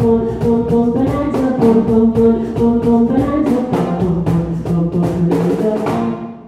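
Live song by a female singer with acoustic guitar, backed by drums keeping a steady beat of about four hits a second. The song ends about six seconds in.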